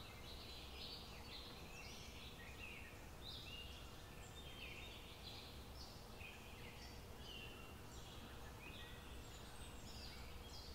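Faint background of many birds chirping in short, overlapping calls, over a low steady hum.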